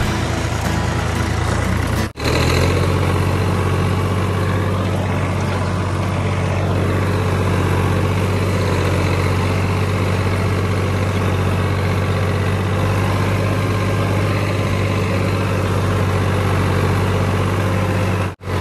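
Farm tractor's diesel engine running at a steady speed, heard from the driver's seat as the tractor drives across a field. The sound cuts out for an instant about two seconds in and again just before the end.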